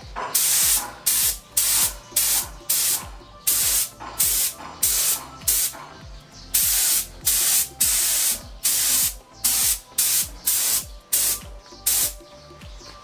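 Spray gun spraying mixed two-part anti-corrosion primer in short pulls of the trigger: about twenty quick bursts of hiss, roughly one and a half a second, stopping near the end. Background music underneath.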